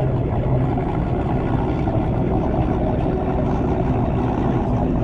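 Bass boat outboard motors idling and running slowly close by, a steady low engine drone.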